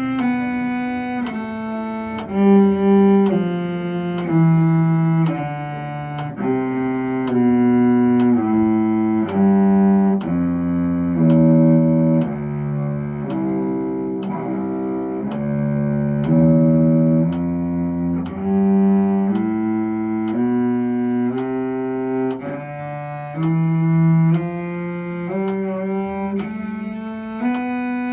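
Bowed string instrument practising scales: one held, bowed note after another, each about half a second to a second long. The notes climb and descend in several runs, with a slow bow drawn through to the end of each note.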